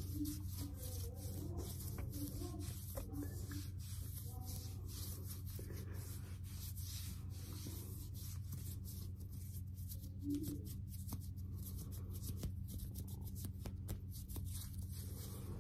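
Close-miked ASMR hand sounds: palms and fingers rubbing and brushing together, making crispy rustles and many light ticks, over a steady low hum.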